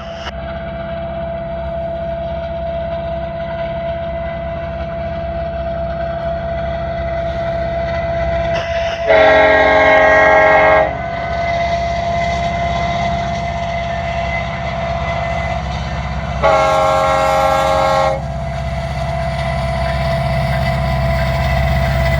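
Union Pacific diesel locomotives approaching a grade crossing, their low engine rumble slowly growing louder. The air horn sounds two long blasts of several tones together, about nine and sixteen seconds in.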